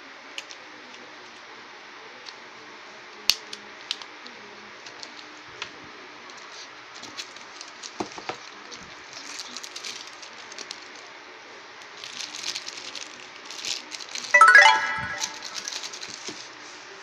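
Small clicks, taps and crinkling from objects and packaging being handled, with a short, loud squeaky sound about fourteen and a half seconds in.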